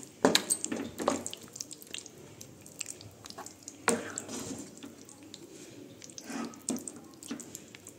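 A wooden spatula stirring thick paneer gravy in a nonstick kadai: irregular wet, squelching strokes scraping the pan, with a few sharper knocks among them, the clearest about four seconds in.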